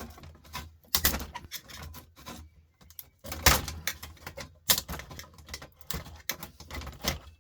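Irregular clicks, knocks and clatter of hard parts and tools being handled while a desktop power supply is taken apart, with the sharpest knocks about three and a half and about four and a half seconds in.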